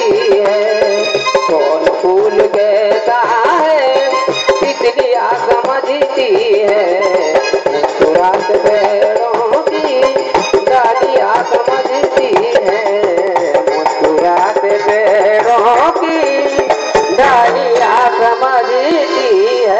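Qawwali music with no lyrics: tabla drumming in dense strokes under a melody line that bends up and down, over a steady low drone.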